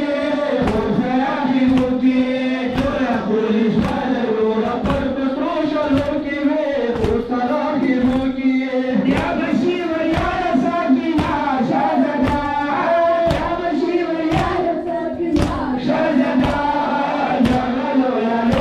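A group of male mourners chanting a noha in unison while beating their chests (matam), the sharp hand-on-chest slaps landing together about three times every two seconds.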